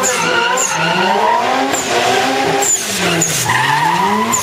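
Toyota Corolla AE86 drift car's engine revving hard while it slides, its tyres skidding and squealing. The engine pitch swings up and down, dips about three seconds in, then climbs again.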